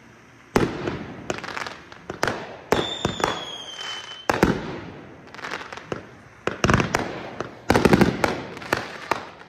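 Fireworks going off in a rapid run of sharp bangs and pops. A shrill whistle, falling slightly in pitch, sounds from about three to four seconds in. The loudest, densest cluster of bangs comes near the end.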